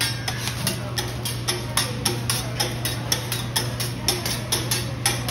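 Metal teppanyaki spatulas striking and scraping a steel griddle in a steady rhythm, about three clicks a second, over a low steady hum.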